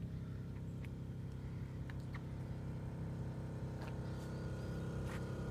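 Kleinn air compressor running steadily with an even, low hum as it pumps up the 2.5-gallon air tank for the train horns. A few faint clicks sound over it.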